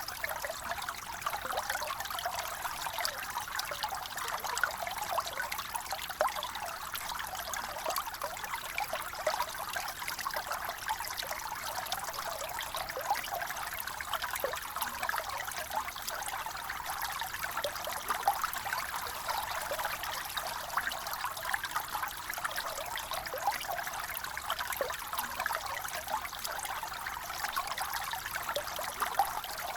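Running water trickling and gurgling steadily, with many small splashes.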